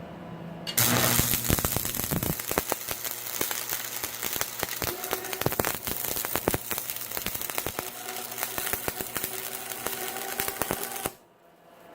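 Stick (arc) welding: the electrode's arc strikes about a second in and crackles and spits steadily as a bead is run on steel tubing, then the arc breaks off sharply near the end.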